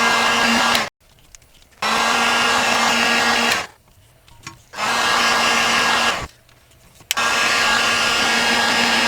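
Handheld electric heat gun blowing, a steady rush of air over a constant motor hum, shrinking heat-shrink tubing over soldered wire splices. It cuts off about a second in and is switched back on three times, each run lasting one to three seconds.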